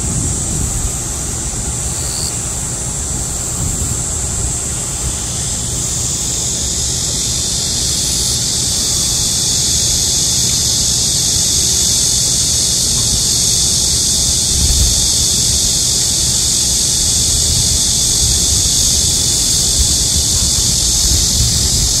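Chorus of cicadas singing in a continuous high-pitched buzz that swells louder about five or six seconds in. Wind rumbles on the microphone underneath.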